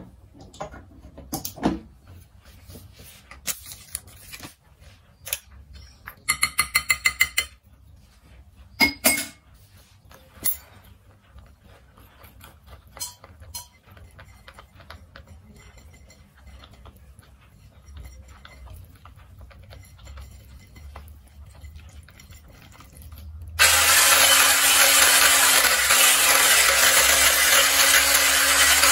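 Utensils knocking and clinking against a glass bowl, with a quick run of clicks, then about 24 s in an electric hand mixer switches on and runs steadily, beating pancake batter.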